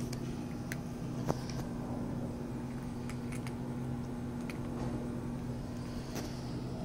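Cats eating dry kibble, a few short faint crunching clicks, over a steady low mechanical hum from an unseen machine.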